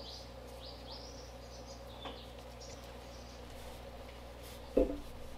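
Quiet workshop background hum with a few faint, short, high falling chirps, and one brief thud near the end.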